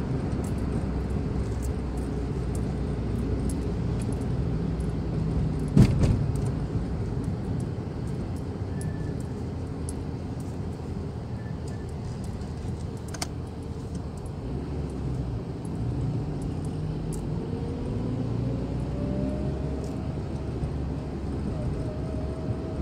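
Car cabin noise while driving in city traffic: a steady low engine and road rumble with faint scattered ticks and rattles. A sharp knock comes about six seconds in and a lighter click about thirteen seconds in.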